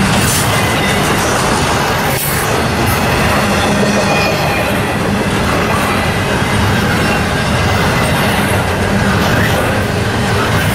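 Norfolk Southern double-stack intermodal train's well cars rolling past at speed: a loud, steady rumble of steel wheels on the rails.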